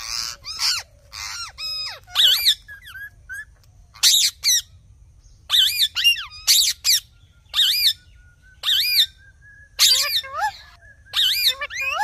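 Indian ringneck parakeets calling: short, shrill screeches that rise and fall in pitch, coming in quick clusters separated by brief pauses.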